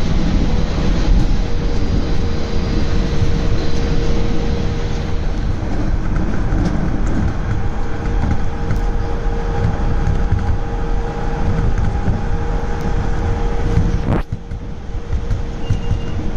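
Baltimore Metro Subway train running at speed on surface track: a continuous rumble of wheels on rail with a steady motor hum. About fourteen seconds in the noise dips suddenly and goes duller.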